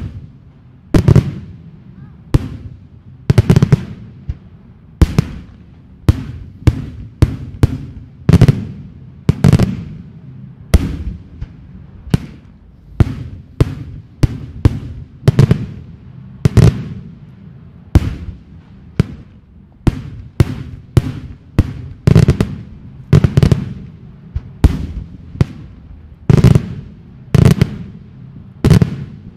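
Daytime aerial fireworks shells bursting overhead in a rapid, irregular string of loud bangs, roughly one to two a second, each dying away in a brief echo.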